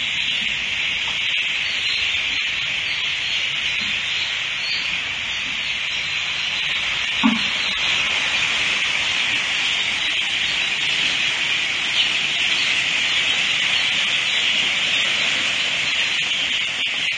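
Dense, steady high-pitched peeping of a whole house of broiler chicks, with a couple of faint knocks.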